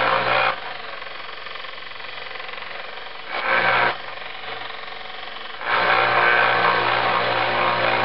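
Small Harbor Freight belt sander with an 80-grit belt grinding the edge of an old hatchet head: a harsh grinding hiss over the motor's steady hum while the steel is pressed to the belt. It eases to the motor and belt running alone about half a second in, grinds briefly again about three and a half seconds in, then grinds steadily from about six seconds on. The edge is being ground back past nicks and gouges.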